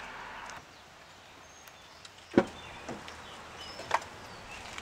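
Faint birdsong in woodland, with a sharp knock followed by two smaller clunks at the truck's open door. A steady rushing noise stops about half a second in.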